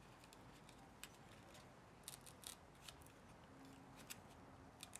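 Near silence with a few faint, short clicks from hands handling a pushrod-wire torsion spring set in a foam-core rudder.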